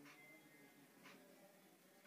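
Near silence: faint room tone in a pause in the narration.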